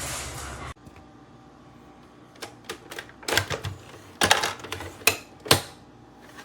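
A capsule espresso machine's pump buzzes with a low hum and cuts off suddenly under a second in. A run of sharp plastic clicks and knocks follows, the loudest near the end, as the machine is handled.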